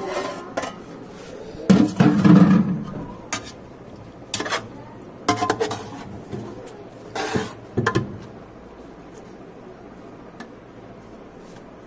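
Stainless steel pot lid lifted off with a clatter, then a metal spoon clinking and scraping against the steel pot several times while scooping food; the clinks stop about eight seconds in.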